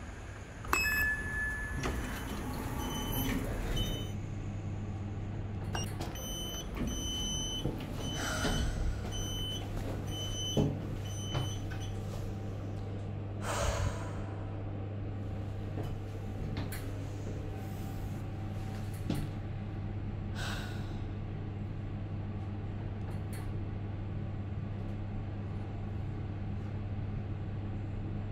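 Passenger lift: a steady low hum from the lift machinery, with a few knocks and clicks and the sliding doors closing with a knock about halfway through, then the car running upward.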